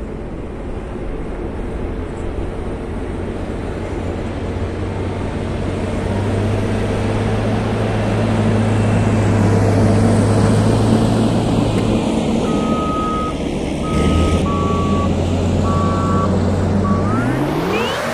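Caterpillar 140M motor grader's diesel engine running under load as the machine backs up close by, growing louder to a peak about ten seconds in. A few short high beeps sound in the second half, and a fast rising sweep begins at the very end.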